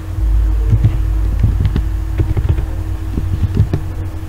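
Computer keyboard keys clicking in short, irregular taps over a steady low hum.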